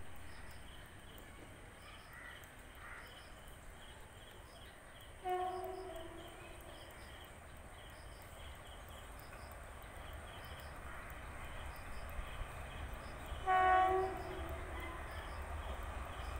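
WAP-4 electric locomotive sounding its horn twice as it approaches: a blast of about a second some five seconds in, then a louder, shorter one near the end, each sagging slightly in pitch as it stops. The low rumble of the oncoming train grows toward the end.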